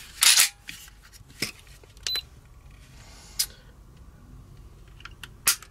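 Handling clicks and knocks of a Walther PPS pistol and a Lyman digital trigger pull gauge, with a brief beep about two seconds in. A sharp click near the end fits the striker releasing as the gauge pulls the trigger through.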